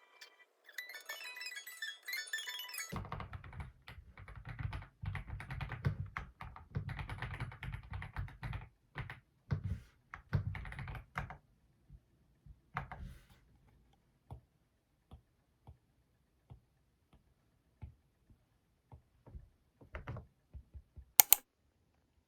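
Typing on a computer keyboard: a fast run of keystrokes, then slower single key presses, and one sharp loud click near the end. A short chime-like music phrase plays first.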